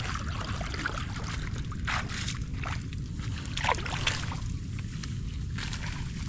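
Water sloshing and splashing in irregular bursts as someone wades through shallow, muddy floodwater, over a steady low rumble.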